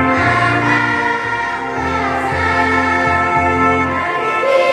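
Children's choir singing a hymn with electronic keyboard accompaniment: held chords over a bass line that changes every second or so.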